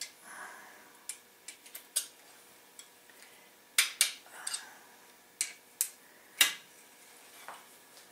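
About a dozen sharp, irregularly spaced metallic clicks and clinks from a wrench working the case-half nuts on a Volkswagen air-cooled engine case. The nuts are being brought up to a first torque stage of 15 ft-lb.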